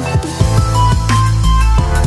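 Electronic dance music with a fast run of drum hits that gives way, about half a second in, to a heavy bass line under synth notes.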